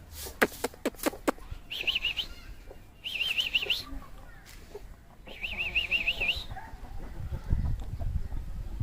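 A bird's wavering high trill, three times over a few seconds, with a few sharp clucks or clicks at the start and a low rumble near the end.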